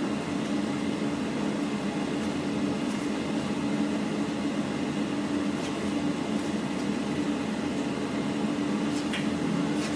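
Air fryer running, a steady even hum from its fan.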